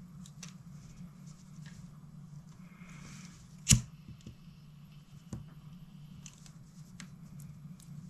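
A small pocket lighter is struck with one sharp, loud click about three and a half seconds in, as it is worked close to heat-shrink tubing on a fishing-line knot. Lighter handling makes a few small clicks and ticks, over a steady low hum.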